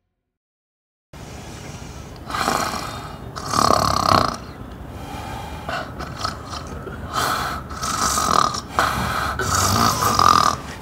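A woman snoring loudly in her sleep, snore after snore in quick, irregular succession, starting about a second in after a moment of silence.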